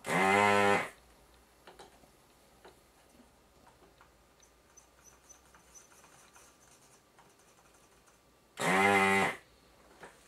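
Two short electric buzzes, each just under a second: the vacuum pump of an electric desoldering tool sucking molten solder off the IPM module's pins. One comes at the very start and the other near the end, with faint clicks of the tool against the board between them.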